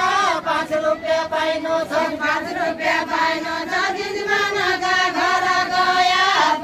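A group of villagers singing a deuda, the far-western Nepali folk song of the deuda dance, together in chorus with long drawn-out notes.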